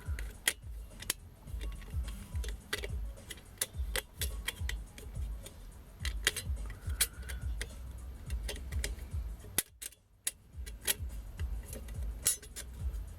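Light metallic clinks and taps of engine parts being handled, with dull knocks underneath, as the cylinder barrel and a new base gasket are fitted to a Lambretta two-stroke engine.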